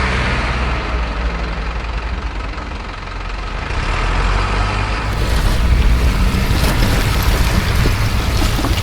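A heavy engine rumbling steadily at a low pitch. About five seconds in the sound changes abruptly and turns rougher and noisier.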